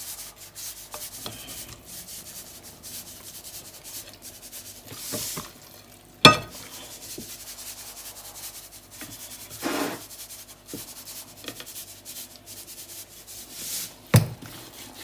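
A hand rubbing salt over the skin of a raw whole chicken, a soft rubbing with a few brief swells. A sharp knock about six seconds in, the loudest moment, and a smaller one near the end.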